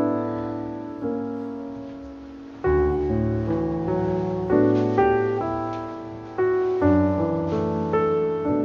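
Soft piano background music, slow chords struck and left to fade.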